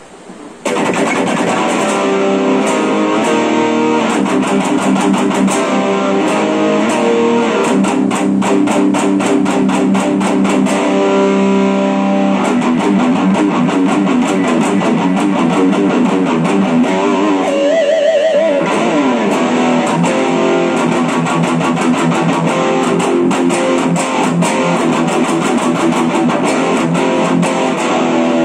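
Gibson Les Paul Supreme electric guitar being played: picked notes and chords, with a wavering vibrato note a little past halfway followed by a downward slide.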